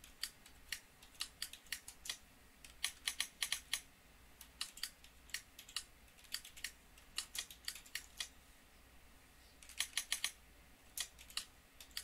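Typing on a computer keyboard: quick irregular runs of key clicks, with a pause of a few seconds in the middle before the typing resumes.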